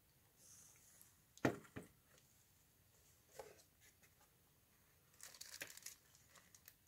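Thin plastic bag crinkling and rustling as it is handled, with one sharp knock about a second and a half in, the loudest sound, and a quick run of crackles near the end.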